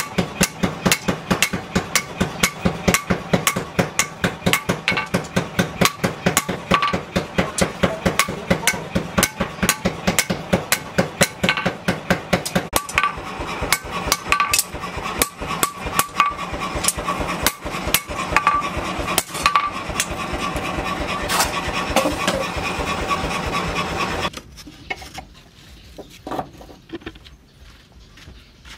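Hand hammer forging a hot steel knife blade, made from chainsaw steel, on an anvil: a long run of quick, even blows with a ringing note from the anvil. The hammering stops about 24 seconds in, leaving a few light knocks as the blade is handled.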